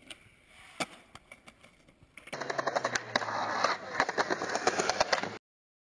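Skateboard: a few faint clicks, then from about two seconds in the loud rolling of skateboard wheels over paving, full of rapid sharp clacks of the board. It cuts off abruptly near the end.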